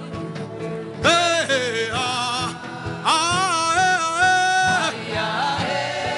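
Worship music: a solo voice chanting two long phrases of held, wavering notes, the first about a second in and the second from about three seconds in, over a sustained keyboard-like pad.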